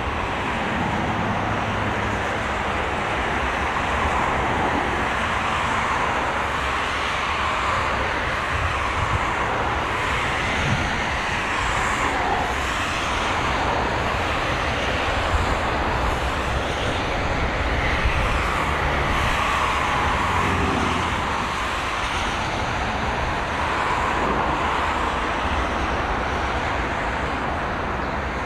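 Steady vehicle noise: a continuous rushing drone with a low rumble underneath, swelling and easing slightly with no sharp events.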